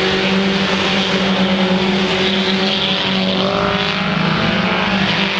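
Engines of mini stock race cars running hard together as they lap the track, one rising in pitch about three seconds in as a car accelerates past.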